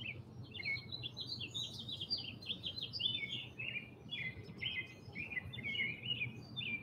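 Backyard songbirds chirping and singing in a continuous stream of quick, high notes and short trills.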